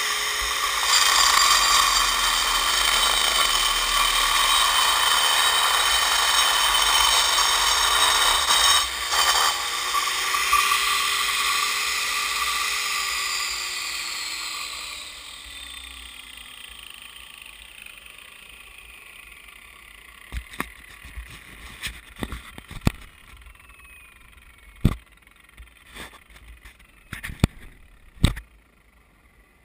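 Bosch angle grinder with a 10-inch turbo blade cutting into stone, running with a loud, steady whine. About twelve seconds in it is taken off the work and spins down, its pitch falling. Scattered sharp clicks and knocks follow over the last ten seconds.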